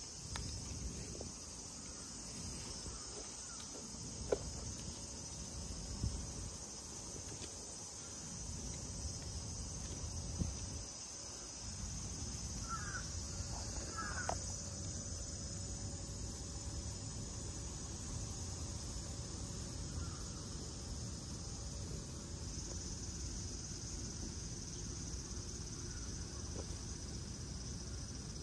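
A steady, high insect chorus, with a crow cawing twice about halfway through.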